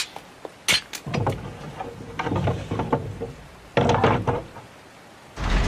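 Sound effects of horses' hooves clopping, then a heavy iron-banded wooden castle gate being opened, with knocking and rattling from its mechanism. A loud low rumble sets in near the end.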